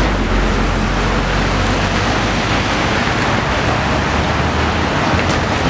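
Traffic on a rain-soaked street: cars passing with their tyres swishing through water on the wet road, a steady rush of noise.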